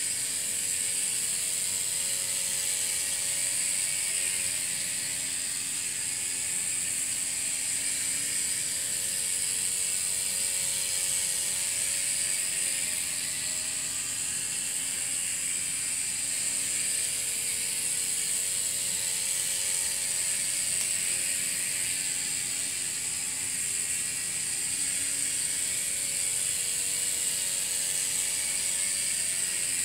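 Miniature steam railroad speeder running steadily around its track, its one-cylinder, single-acting steam engine and small wheels making a fast mechanical chatter over a steady high hiss.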